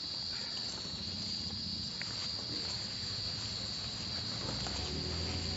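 Steady high-pitched chorus of insects, typical of crickets or cicadas, droning without a break. A low rumble joins in about four seconds in.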